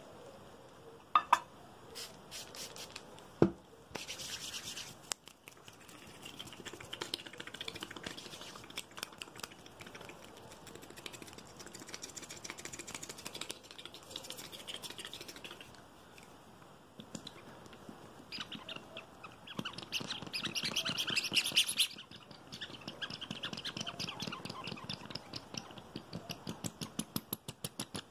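Fast ASMR scratching and rubbing close to the microphone. A few sharp taps come in the first few seconds, then long runs of rapid scratchy strokes, loudest about two-thirds of the way through. Near the end the strokes settle into an even rhythm of about four a second.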